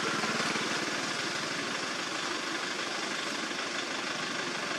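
An engine idling steadily, with a fine even pulse under a broad, steady hiss.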